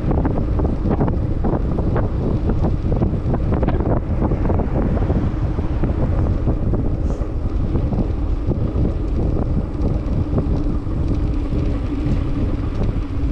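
Wind buffeting the microphone of a camera on a moving bicycle, over the rolling rumble of tyres on a concrete path, with frequent small clicks and rattles from the bike.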